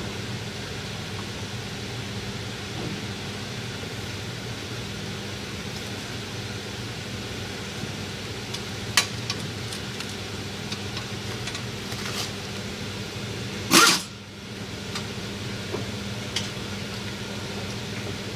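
Steady mechanical hum of workshop machinery, with scattered light clicks and clinks of hand tools on a car's front wheel hub assembly. About three-quarters of the way through comes one loud, short burst.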